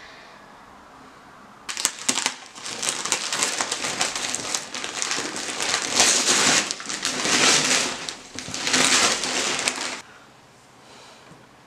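Gift wrapping paper being ripped and crumpled off a present: loud crackling and tearing that starts suddenly about two seconds in, comes in several surges, and stops abruptly shortly before the end.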